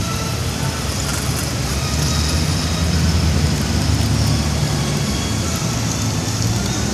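Steady rumble of city street traffic, a little stronger through the middle.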